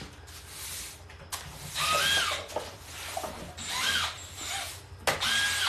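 A cordless power drill/driver driving a screw in three short trigger pulls; each time the motor whine rises, holds and winds down.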